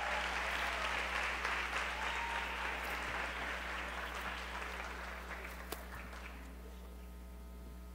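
Audience applauding, the clapping dying away about six seconds in and leaving a faint steady hum from the sound system.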